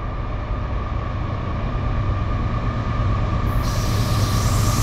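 Norfolk Southern AC44C6M diesel locomotive approaching at the head of an empty autorack train: a low engine drone with a steady whine over it, growing steadily louder as it nears.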